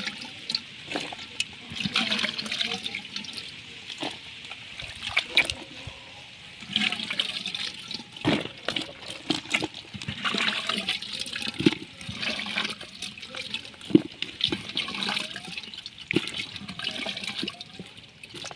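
Hands splashing and scooping in a small muddy hole of water crowded with small fish, in repeated irregular sloshes with sharp slaps among them.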